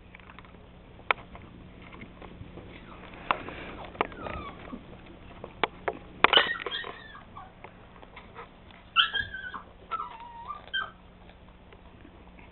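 English Springer Spaniel puppy whimpering in short, high whines that bend in pitch, mostly in the last few seconds. Before them come a handful of sharp clicks and knocks.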